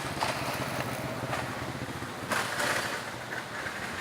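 Steady rush of water at a reservoir dam, swelling louder for a moment a little past halfway.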